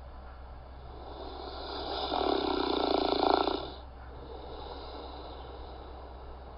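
A person snoring: a breath builds into one loud, rattling snore lasting about a second and a half, which breaks off suddenly, followed by a softer breath.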